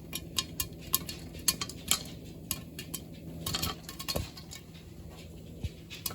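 A scattered series of light, sharp clicks and clinks, about a dozen at irregular intervals, over a quiet background.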